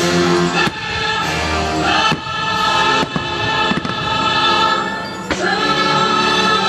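Fireworks show soundtrack of orchestra and choir singing, loud and sustained, with about five fireworks bangs going off through it.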